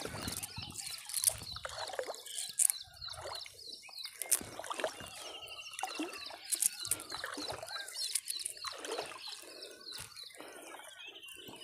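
Water splashing and trickling irregularly around a person wading about waist-deep. A bird gives a short trill about five seconds in and again near the end.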